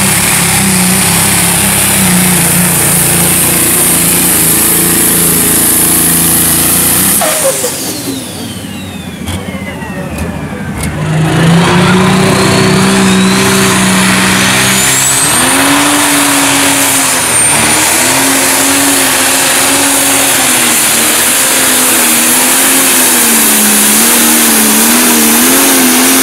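John Deere pro stock pulling tractor's turbocharged diesel engine at full power under load; about seven seconds in the engine drops off and a high whine falls away in pitch. About four seconds later it comes back to full power with a rising whine, its pitch wavering up and down as the tractor pulls.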